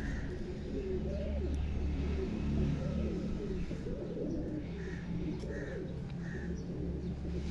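Domestic pigeons cooing, several soft low coos overlapping, with a few short higher notes about two-thirds of the way in. A steady low hum runs underneath.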